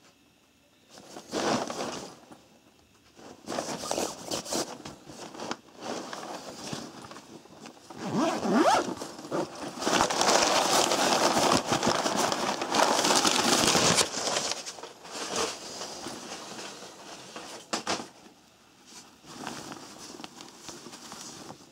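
A Diesel fabric business bag being handled: zippers pulled along their tracks and the fabric rustling and scraping, in uneven bursts that are loudest and most continuous through the middle.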